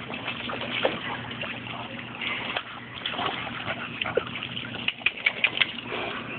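Dog swimming in a swimming pool, the water sloshing and splashing as it paddles, with a run of short sharp sounds about five seconds in.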